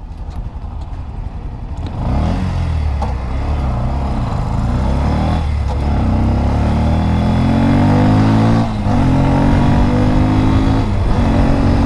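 Bajaj CT 125X's single-cylinder 125cc engine accelerating hard from low speed for a pickup run: it pulls away about two seconds in, then rises in pitch through each gear, dropping back at four upshifts.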